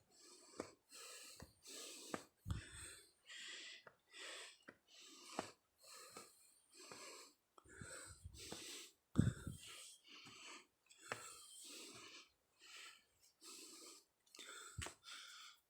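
A person breathing hard and out of breath from exertion, panting in short, even breaths a little over one a second. There are three low thumps along the way.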